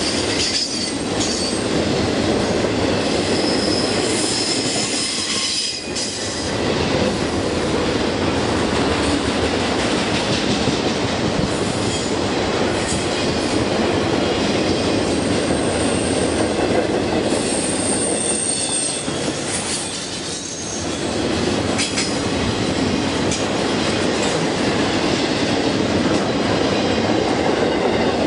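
Railroad cars rolling past with a steady rumble of wheels on rail. High wheel squeals come in a few brief spells, and the sound dips briefly twice.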